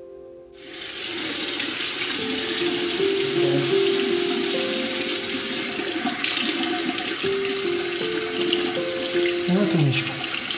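Faucet water running into a white ceramic bathroom sink and over a puppy being washed under the stream, starting suddenly about half a second in.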